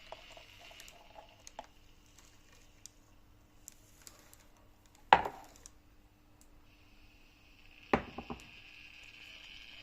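Cup and milk pitcher being handled at the end of pouring a cappuccino: a few faint clicks, then a sharp clink about five seconds in and another, followed by two smaller knocks, about eight seconds in, over a faint steady hum.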